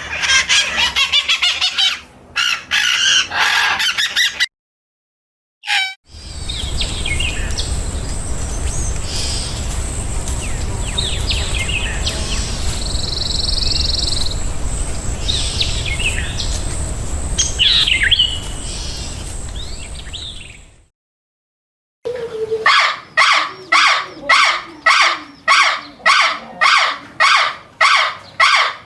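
Birds chirping and calling in several short stretches separated by brief gaps. The middle stretch has a steady background rush under scattered high calls. Near the end a bird gives a loud call that repeats about twice a second.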